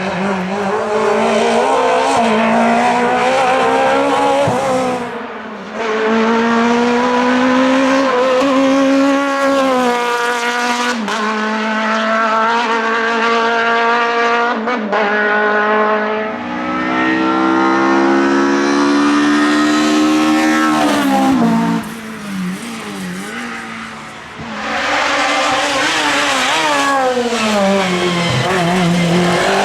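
Groupe F2000 rally car's naturally aspirated engine at full throttle, its note climbing hard through several quick gear changes. About two thirds of the way in it drops away sharply, as under braking, and then picks up loud again.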